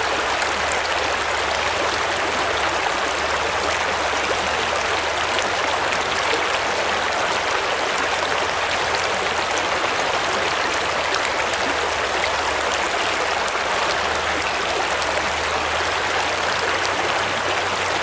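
Shallow stream running over rocks, heard close to the water: a steady, even rushing and burbling.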